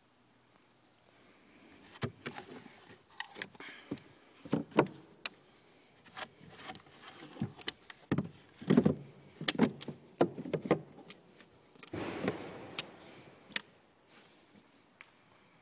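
Handling noise in a car's interior: irregular knocks, clicks and rubbing, the loudest about nine seconds in, with a longer scraping rustle near the end.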